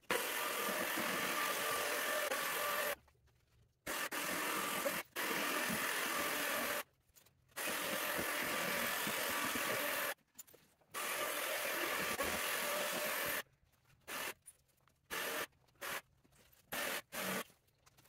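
Cordless jigsaw fitted with a scroll blade cutting 3/4-inch XPS foam board. It runs steadily in stretches of about three seconds, each cut off suddenly, then in several short bursts of a second or less near the end.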